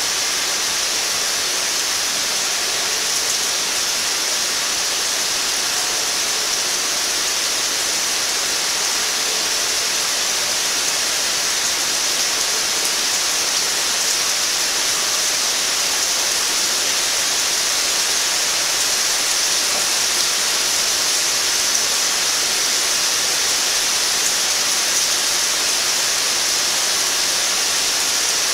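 Heavy thunderstorm rain pouring down in a steady, even hiss, with no thunderclap standing out.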